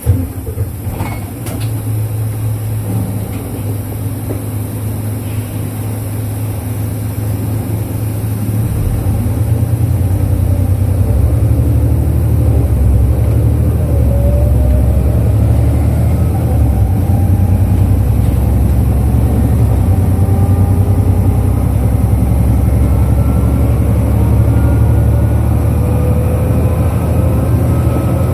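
Cabin sound of a 2005 Isuzu Erga KL-LV834L1 non-step city bus under way. The engine drone builds over the first ten seconds as the bus gathers speed, and thin whining tones climb in pitch through the second half. A sharp knock sounds right at the start.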